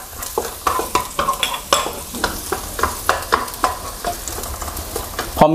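Minced garlic sizzling in hot oil in a wok while a wooden spatula stirs it, with irregular scrapes and taps of the spatula on the pan. The garlic is being fried until fragrant, the first step of a stir-fry.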